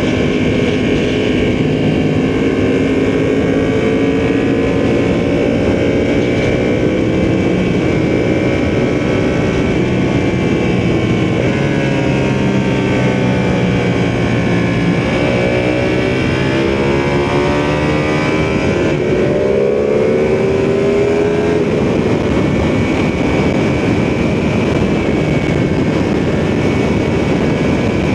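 Ducati motorcycle engine and exhaust on the move, pitch falling off about halfway through and then climbing again as the throttle is opened back up, with wind rush.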